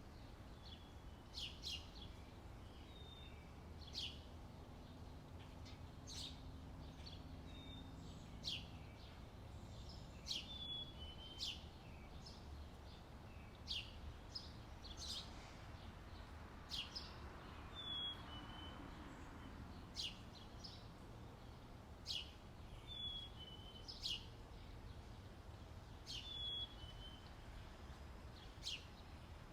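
A bird calling over and over with short, sharp chirps that drop in pitch, often followed by a brief short note, roughly one every second or two, over a faint low rumble.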